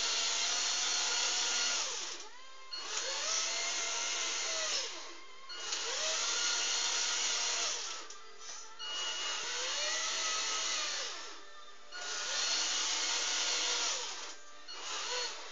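Radio-controlled model truck's electric drive motor and gearbox whining in five short runs of about two seconds each. In each run the pitch rises as the truck speeds up and falls as it slows to a stop.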